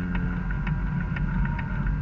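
Garden-railway model train running, its electric motor and gears giving a steady hum, with sharp clicks about twice a second.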